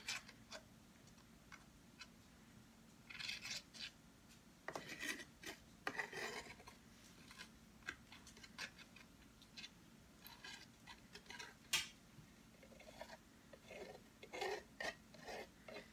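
Faint metal palette knife scraping and tapping across a small canvas, spreading white acrylic paint in short, irregular strokes.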